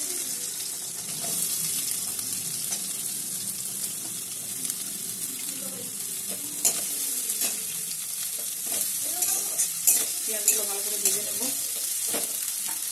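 Sliced onions sizzling steadily in hot mustard oil in a kadai. A metal spatula scrapes and clinks against the pan a few times in the second half as they are stirred.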